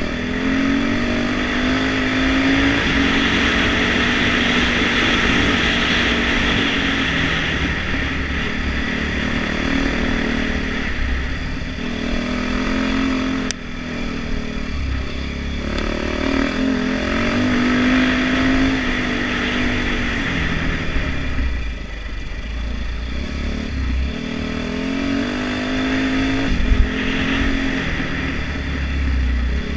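Dirt bike engine running under way, its note rising and falling over and over as the rider works the throttle through the gears. It backs off briefly about halfway through, and there is a sharp knock near the end.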